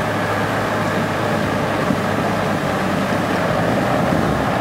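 Off-road 4x4's engine running steadily at low revs as the vehicle crawls slowly over rocks.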